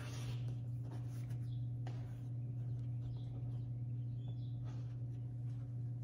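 A rotary cutter drawn along a ruler through fabric on a cutting mat, then soft rustles of cut fabric strips being handled. A steady low hum runs underneath.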